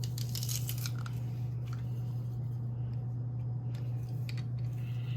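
Fresh onion, scallion, sweet pepper and thyme being crushed: short crunching, squishing crackles in a few clusters, near the start, at about two seconds and again around four seconds, over a steady low hum.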